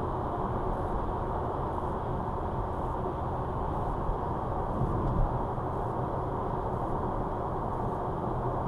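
Steady road and engine noise heard inside a car cruising on a motorway: an even tyre rumble and hum, with a couple of small bumps about four and five seconds in.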